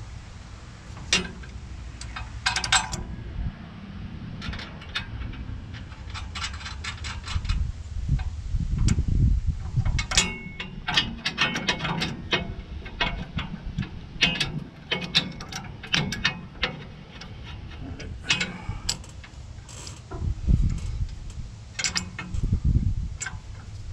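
A ratchet wrench clicking in short runs, with clinks of tools and fittings on metal, while hydraulic hard-line fittings and their mounting bracket are fastened on a tractor loader.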